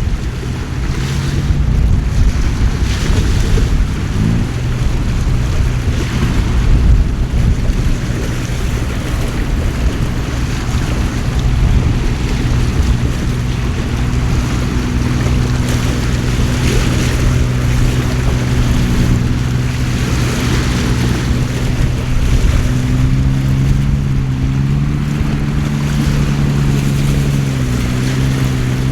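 Heavy rain and wind buffeting the microphone, with a boat engine running steadily from about four seconds in, its pitch shifting a few times near the end.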